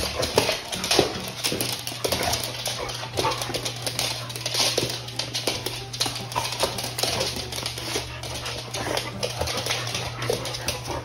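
A pit bull terrier and a second dog playing on a hard plank floor: a steady patter of claws clicking and scuffing, with many short dog noises mixed in.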